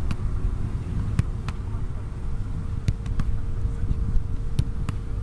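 Wind rumbling on the microphone with a faint steady hum, broken by sharp knocks of a soccer ball being kicked and caught, in three quick pairs.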